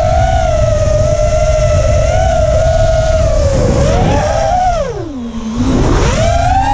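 Demon RC Aura FPV quadcopter's brushless motors and propellers whining steadily in fast flight, with wind rushing over the onboard camera. About four and a half seconds in, the whine falls steeply as the throttle is eased off, then climbs back sharply about a second later as it is opened up again.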